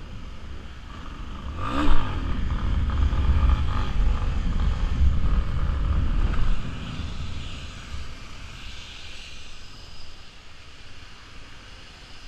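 Motorcycle engine revving up hard, with a sharp peak about two seconds in, then pulling loud under throttle. The level drops suddenly after about six and a half seconds, and the engine carries on quieter.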